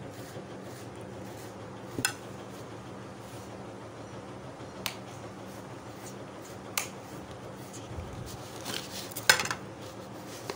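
Kitchenware being handled on a tabletop: single sharp clinks about two, five and seven seconds in, then a short clatter of several near the end, the loudest of all.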